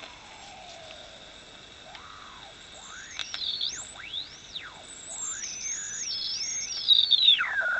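Shortwave receiver with its BFO switched on: a whistling beat tone that glides up and down in pitch in wide sweeps as the dial is tuned across a radiofax signal, over steady hiss. A click right at the start.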